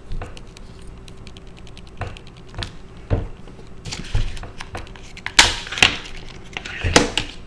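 Small clicks and taps with several sharper knocks, the loudest a little past halfway and again near the end, as an iPhone 3GS and a suction cup are handled on a work surface. A faint steady hum runs underneath.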